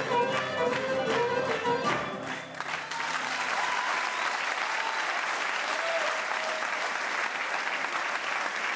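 Greek folk band music, a bowed string melody over a beat, ends about two seconds in, and the audience breaks into steady applause.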